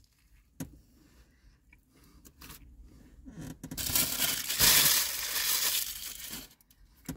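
Rustling and crinkling close to the microphone during eating, loudest from about four to six seconds in, after a single click about half a second in.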